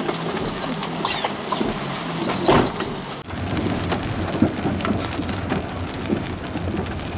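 Inside a car: a few knocks and rustles for about three seconds, then after a sudden break, the steady noise of the car driving on a wet road in the rain, with a low engine hum under it.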